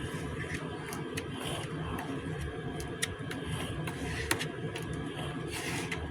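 A steady low mechanical drone, with a few light clicks about three and four seconds in.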